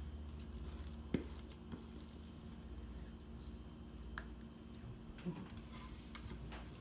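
Mashed potatoes being scraped out of a stainless steel bowl with a spatula and dropped into a pot: soft squishing, with a sharp tap about a second in and a few lighter ticks of the spatula against the metal.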